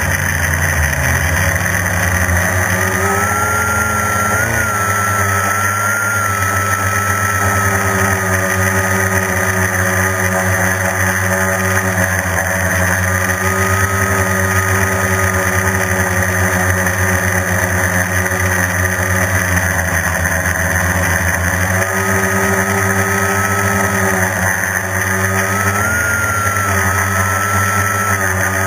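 Quadcopter's brushless electric motors and propellers whining steadily in flight, heard on the onboard camera. The whine drifts in pitch with the throttle and rises briefly about four seconds in and again near the end.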